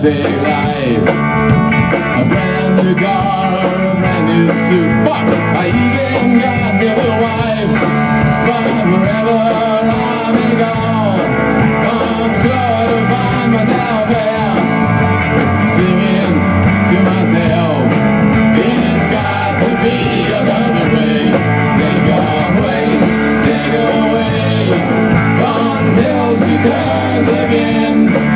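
Rock band playing an instrumental stretch: electric guitar leading with bent notes over bass guitar and a drum kit, with no lead vocal.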